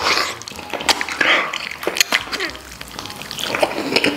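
Eating sounds of a man biting into and chewing a stewed pork knuckle: a loud bite right at the start, then rapid, irregular smacking clicks of the mouth and tearing of the tender meat and skin.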